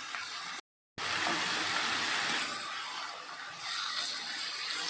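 Cut potatoes and onions sizzling in hot oil in a pan, a steady hiss, broken by a brief silent gap about half a second in.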